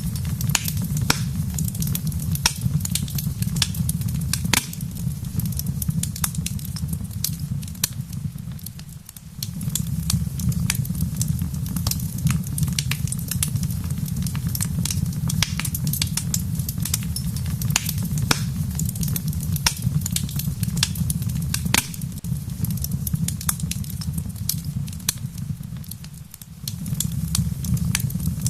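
Wood fire crackling in a fireplace, many sharp pops and snaps over a steady low rumble, with rain falling outside. The rumble dips briefly twice, about nine seconds in and again near the end.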